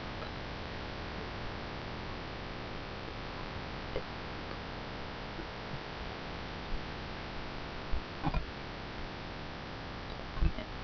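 Steady background hum and hiss, broken by a few short soft knocks or clicks.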